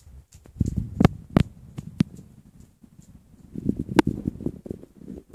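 Paper shopping bag rustling and crinkling as a cat pokes its head and paws into it, with irregular sharp taps and knocks; the loudest come about a second in, at about two seconds, and near four seconds.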